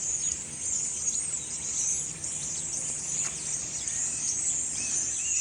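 A large flock of birds calling all at once: a dense, unbroken chatter of many short, high chirps.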